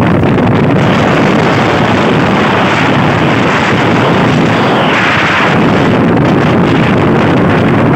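Loud, steady wind noise buffeting the microphone, with a brief brighter hiss about five seconds in.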